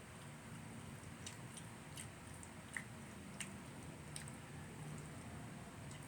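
Faint eating sounds: soft chewing with a few small scattered clicks and taps, over a low steady room hum.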